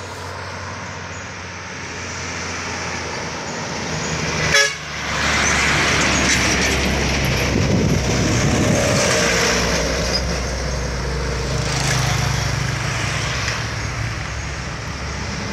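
Trucks working through a sharp bend: engine noise builds, with a brief sharp toot about four and a half seconds in. A Mitsubishi truck then passes close by, its engine and tyres loudest from about five to ten seconds in before easing off.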